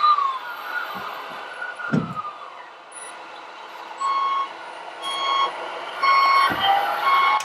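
Reversing warning beeper from an RC construction model's sound module: steady beeps about once a second, starting about four seconds in. There are dull thumps about two seconds in and again near the end.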